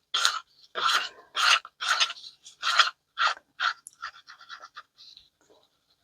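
Stir stick scraping around the inside of a mixing cup while mica powder is stirred into resin, in strong, even strokes about two a second, then softer, quicker strokes that die away about five seconds in.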